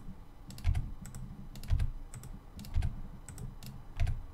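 Clicks of a computer keyboard and mouse: four louder clicks with a low thud, about one a second, with lighter clicks between them.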